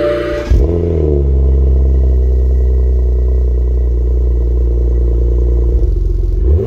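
BMW 335i twin-turbo straight-six starting from cold through a new Cobb cat-back exhaust. It fires about half a second in with a quick rise in revs, settles into a steady high idle, and is revved again near the end.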